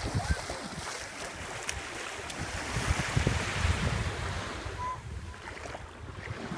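Small sea waves washing in the shallows, with wind buffeting the microphone, the gusts strongest around the middle.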